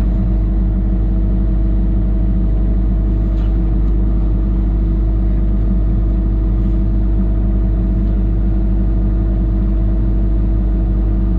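Engine running at a steady speed: a loud, even low drone with a constant hum and no change in revs.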